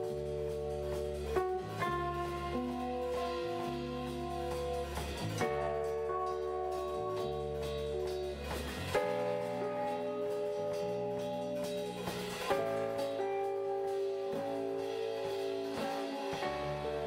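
Background band music led by guitar over drums, with held chords changing every second or so. The deep bass drops out for several seconds in the middle.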